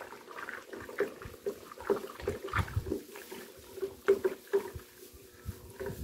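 A stick stirring slaked lime into water in a plastic bucket, with irregular sloshes and knocks against the sides as the whitewash is mixed. The strokes ease off about five seconds in.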